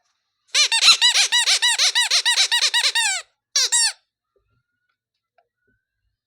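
Rapid run of high squeaks, each rising and falling in pitch, about five a second for nearly three seconds, then a short second run of three squeaks after a brief pause.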